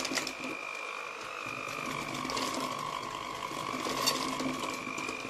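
Electric hand mixer running with a steady whine, its twin beaters churning thick cake batter, with a brief sharp clack about four seconds in.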